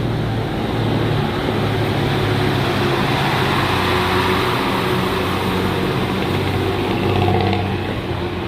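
Diesel engine of a Harapan Baru intercity bus fitted with a 'ngorok' (snoring) exhaust, running with a low, steady drone.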